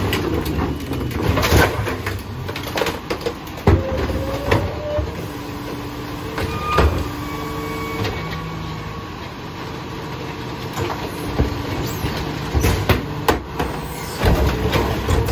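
Rear-loading garbage truck running at idle while its hydraulic cart tipper lifts and dumps plastic wheeled trash carts into the hopper, with repeated sharp bangs and rattles of the carts against the loader. A brief whine from the hydraulics comes about halfway through.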